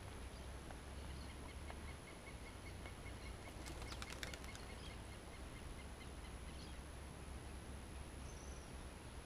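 Quiet outdoor ambience: a low wind rumble on the microphone, with faint bird chirps and a faint rapid ticking call, about five ticks a second, in the first half. A short cluster of sharp clicks comes about four seconds in.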